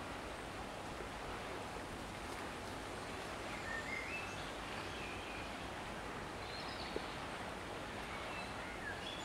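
Steady outdoor background noise with a few faint, short bird chirps scattered through, and a single brief click about seven seconds in.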